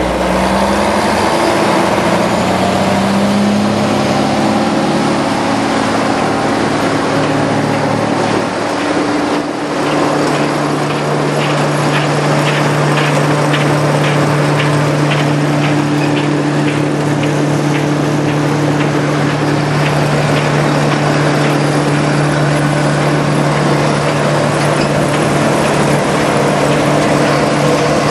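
Farmhand tub grinder's Allis-Chalmers turbo-diesel engine and drive rising in pitch over the first nine seconds or so as it is brought up to speed with the clutch engaged, then running steadily at speed. A regular ticking, about twice a second, joins in for several seconds in the middle.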